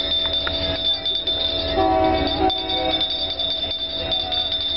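Passenger train rolling slowly past a grade crossing, the cars rumbling over the rails, while the crossing's warning bell rings on steadily. A short pitched tone sounds about two seconds in.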